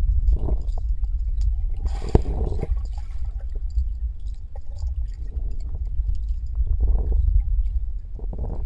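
Pool water heard through an underwater camera's microphone: a steady low rumble with muffled sloshing surges as a dog paddles and its legs are moved in the water, and a sharp knock about two seconds in.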